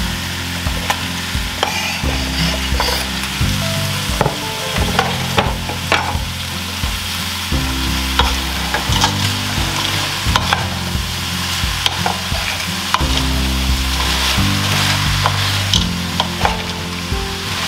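Diced potatoes, frozen mixed vegetables and kielbasa sizzling in a pot while a wooden spoon stirs them, with frequent short knocks and scrapes of the spoon against the pot. Background music with slow low notes underneath.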